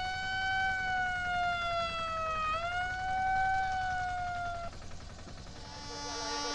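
A siren wailing, its pitch sliding slowly down and jumping back up, then stopping about two-thirds of the way through. A lower, steady tone follows near the end.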